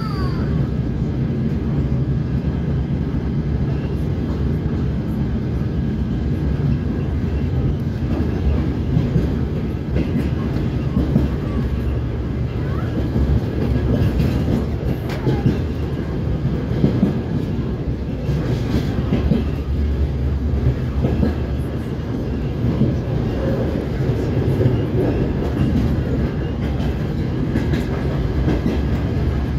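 DR1A diesel multiple unit running along the line, heard from inside the passenger carriage: a steady low rumble of the diesel drive and running gear.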